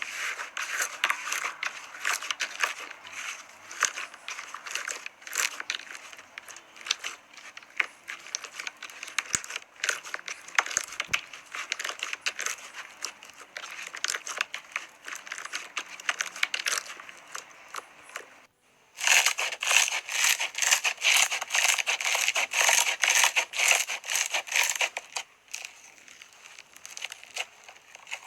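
Slime being squeezed and worked by hand, a dense run of small crackles and pops. After a short break about two-thirds of the way through, the crackling comes back louder and brighter, then softens near the end.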